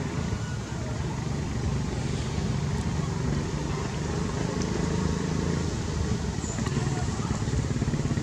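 A small engine running steadily nearby: a continuous low rumble.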